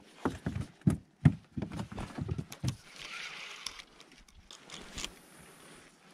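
Handling noise: a run of irregular knocks and clicks from hands working a spinning rod and reel close to the camera, with a camouflage sleeve rustling. A short hiss follows about three seconds in, then one more click near the five-second mark.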